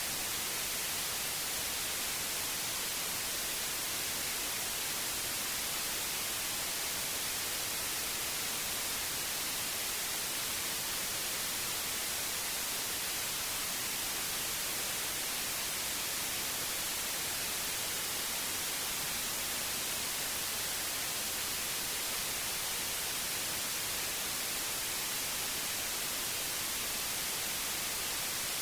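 Generated white noise: a steady, even hiss, strongest in the high end, with no change in level or character.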